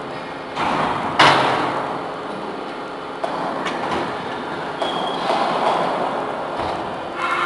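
Double-ram hydraulic metal baler pressing scrap metal: steady grinding and screeching of metal being crushed, broken by sharp clanks, the loudest about a second in.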